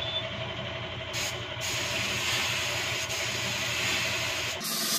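Compressed-air spray gun hissing steadily as it sprays paint onto an iron grill, starting about a second in, over the steady low hum of the air compressor that feeds it.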